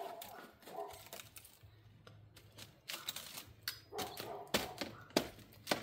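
Climbing spikes and gear knocking against a decaying black walnut trunk: irregular sharp clicks and knocks, the loudest few in the last couple of seconds.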